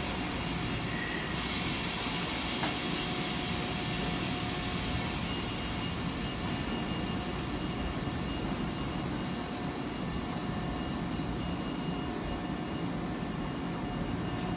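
Shibayama Railway 3500-series electric train standing at the platform with its onboard equipment running steadily. A hiss stops about a second and a half in, and a faint high steady whine joins about five seconds in.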